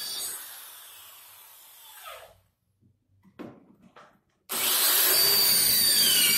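Electric drill boring an angled pocket hole through a Wolfcraft pocket-hole jig into a wooden strip. The motor winds down over the first couple of seconds, a few faint knocks follow, then about four and a half seconds in the drill starts again abruptly at full speed, its whine dipping in pitch as the bit cuts.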